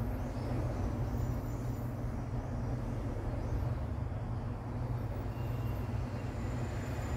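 Steady low background rumble, even and unchanging.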